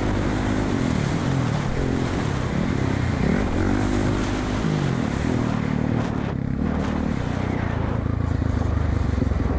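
Dirt bike engine revving up and down as the throttle is opened and closed, rising and falling in pitch several times, with wind rushing over the helmet-mounted microphone.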